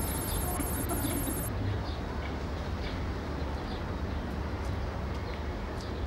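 Outdoor city ambience: a steady low rumble of distant traffic with small birds chirping now and then.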